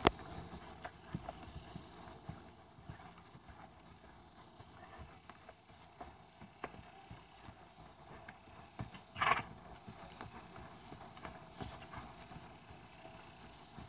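Hoofbeats of a horse trotting and cantering loose on grass, with one brief louder sound about nine seconds in.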